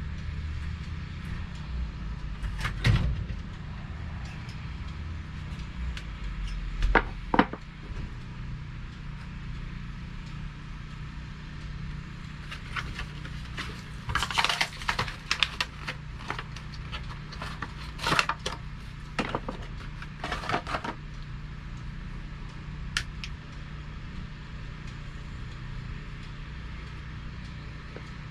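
Scattered knocks, taps and rattles of objects being handled, busiest in a cluster through the middle, over a steady low hum.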